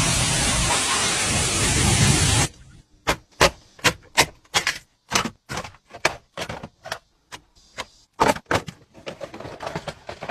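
A loud, steady hiss that cuts off suddenly about two and a half seconds in, followed by a run of sharp, irregular clicks and taps, about two or three a second.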